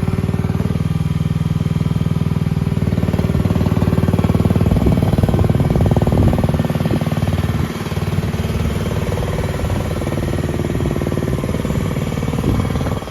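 Gas engine of an EG360T skid steer loader running. It grows louder from about four seconds in, with a few short rising and falling whines, then settles lower about eight seconds in.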